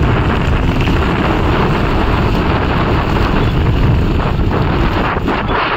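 Wind buffeting the microphone over the engine of a modified off-road 4x4 working as it climbs a steep muddy bank. A loud, steady rumble with no clear rise or fall.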